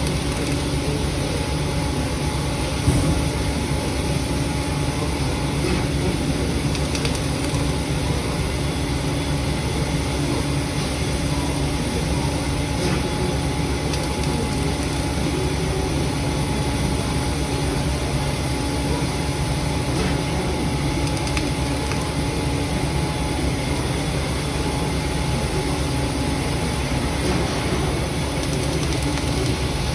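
Industrial machinery running with a steady drone and constant hum tones, and one brief knock about three seconds in.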